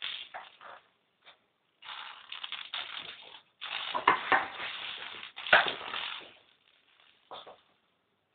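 Kittens scrambling after a ball on the floor: irregular bouts of scuffling and crinkling close to the microphone, with two sharper knocks about four and five and a half seconds in.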